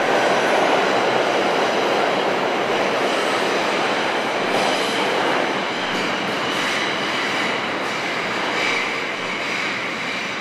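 New York City Subway No. 4 train running through the station past the platform, a dense steady rattle and rumble with a faint high wheel whine. It slowly grows quieter as the train pulls away.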